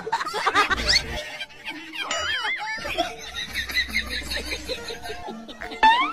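People laughing over background music, with a warbling tone about two seconds in and a short rising whistle-like glide near the end.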